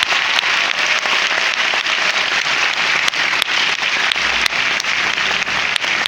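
Large audience applauding steadily, a dense patter of many hands with sharp single claps standing out.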